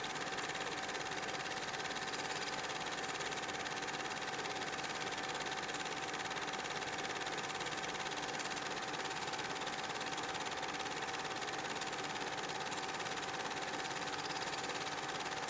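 Steady mechanical hum with one constant mid-pitched tone over a soft hiss, unchanging throughout.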